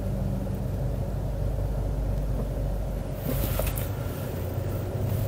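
Car engine and tyre rumble heard from inside the cabin as the car rolls slowly, steady and low, with a short hiss about three seconds in.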